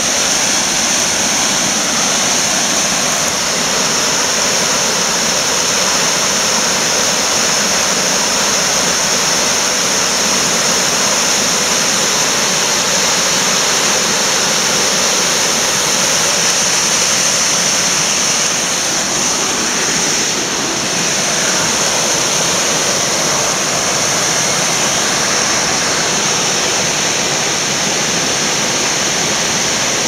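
Small woodland waterfall cascading over rock slabs into a pool: a steady rush of falling water.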